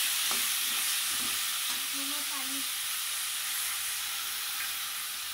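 Potatoes, peas, carrots and green chillies sizzling as they fry in oil in an aluminium pot, stirred with a slotted spatula that clicks against the pot just after the start.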